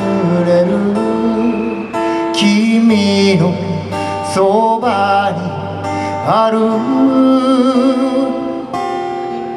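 A man singing to his own acoustic guitar, amplified through a stage PA, with sustained guitar notes under a voice that glides and wavers in pitch.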